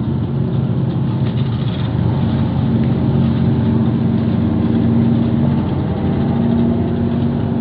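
Diesel engine of a harbour work boat running steadily, a low even hum with a constant pitch.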